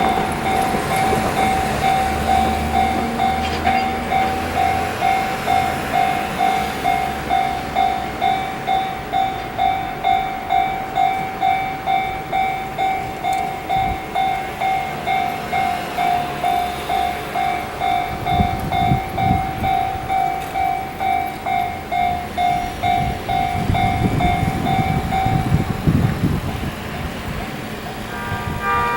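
Japanese level-crossing alarm ringing steadily at about two strokes a second, then stopping shortly before the end. In the second half a rail vehicle's low rumble swells in, here the HD300 hybrid shunting locomotive moving through the yard.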